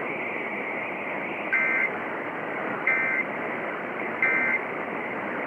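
Emergency Alert System end-of-message data bursts: three short, shrill, warbling digital squawks about a second and a half apart, each the 'NNNN' end-of-message code, signalling that the alert test is over. They come over steady radio hiss.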